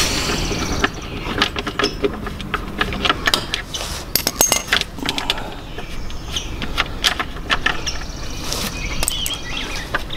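Metal hand tool clicking and clinking irregularly against a nut and bracket under a motorcycle's rear fender as a 7/16-inch nut is worked loose. A bird chirps near the end.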